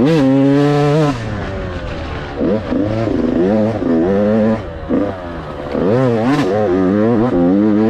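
Dirt bike engine revving hard, its pitch climbing and dropping again and again as the throttle is worked and the bike shifts through the gears.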